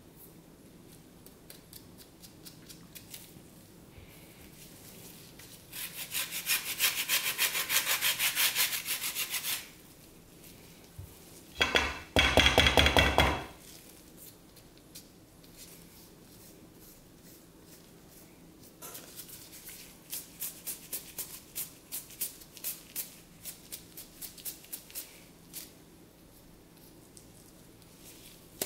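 Lemon zest being scraped off metal graters over a stainless steel mixing bowl: a few seconds of fast rasping strokes, then a short, loud metal scrape with a ringing edge, then a long run of light taps and scrapes.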